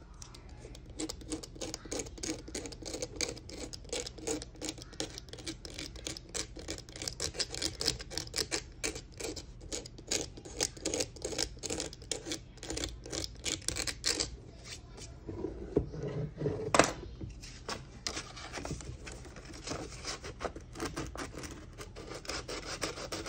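Hand sanding of a toy case's surface to prepare it for repainting: quick, repeated rubbing strokes, with a single sharp knock about two-thirds of the way through.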